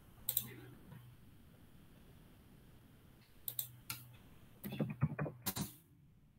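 Computer keyboard keystrokes in short scattered bursts: a couple of taps about a third of a second in, two more near the middle, and a quick run of several keystrokes near the end.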